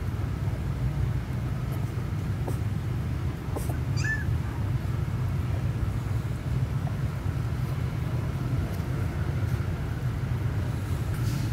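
Steady low background rumble, with one short high squeak from a young puppy about four seconds in.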